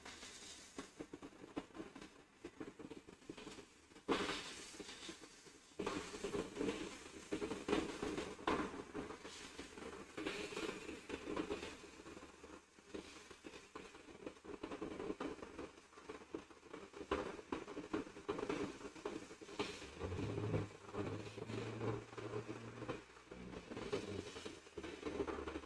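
Small clicks and scraping of tools working the old DC power jack loose from a laptop motherboard. A steady low whir comes in about six seconds in.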